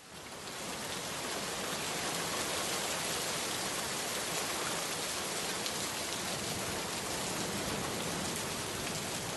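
Steady rain, an added sound effect, fading in over the first second and then holding level.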